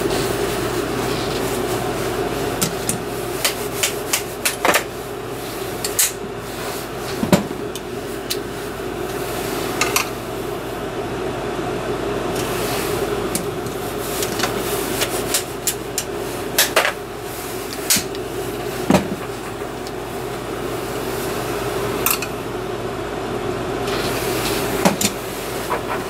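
Scattered sharp metal clinks and knocks from handling tools and lead at a bullet-casting bench, about one every couple of seconds. A small electric fan hums steadily under them.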